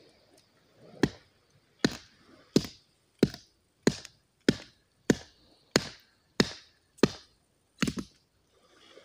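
Knife chopping on a wooden cutting board: about a dozen sharp, even strokes, roughly three every two seconds.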